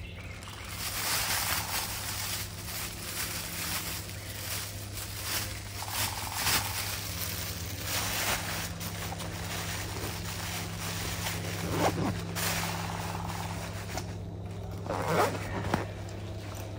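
Irregular rustling and scraping noises that come and go, over a steady low hum.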